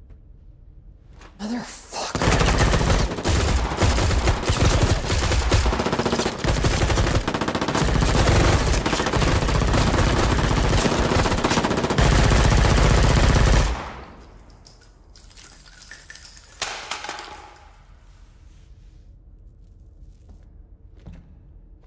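Sustained automatic rifle fire from several guns at once, starting about two seconds in and running dense and loud for about twelve seconds before stopping abruptly, followed by a few shorter bursts.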